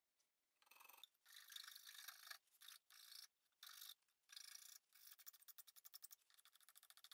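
Hand file rasping in repeated short strokes across the edges of a segmented walnut and maple vase, shaping its cut-out rim and spikes. About a dozen faint, scratchy strokes follow one another with brief gaps.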